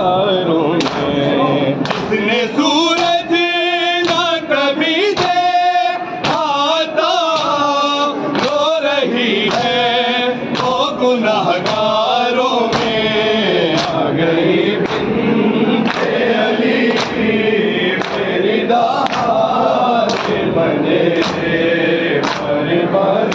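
Men's group chanting a noha, a Shia mourning lament, in unison with loud amplified voices. Sharp slaps of palms beating chests (matam) keep time about once a second.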